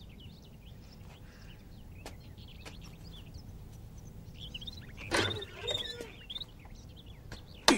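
A wooden door swinging open about five seconds in, followed by a single sharp knock near the end, over a quiet background with faint bird chirps.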